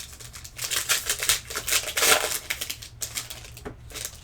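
Trading cards and pack wrapping being handled: a run of quick clicks, flicks and rustles, thickest about halfway through, as cards slide against each other and the packaging is worked open.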